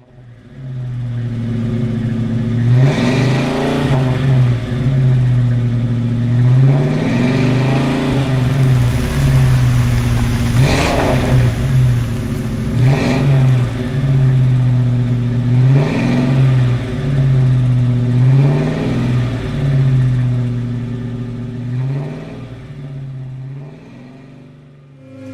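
Car engine running with repeated revs rising and falling every two to three seconds over a steady drone, with a couple of sharp cracks in the middle; it fades out near the end.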